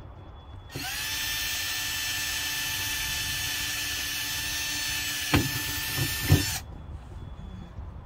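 Cordless drill running at a steady pitch for about six seconds as a 3/32-inch bit drills a pilot hole in the sheet-metal inner door panel, with a few sharp knocks near the end before the motor stops.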